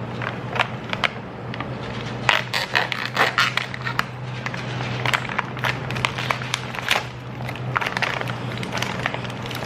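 Plastic chocolate packaging crinkling and crackling as the packet is opened and handled, in many short, irregular crackles. A steady low hum runs underneath.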